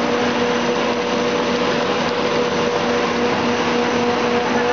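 Dog food processing line machinery running: a steady mechanical whirr with a constant low hum.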